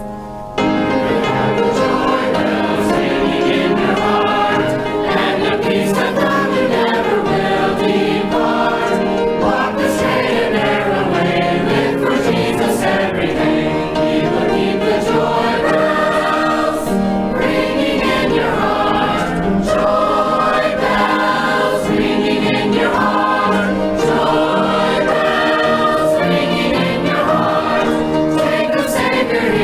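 Youth choir singing a gospel song, coming in loudly about half a second in.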